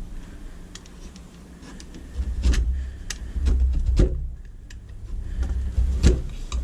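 Razor knife shaving thin slivers off the edge of a wooden window frame: a few sharp clicks and scrapes at uneven intervals over low knocks from handling.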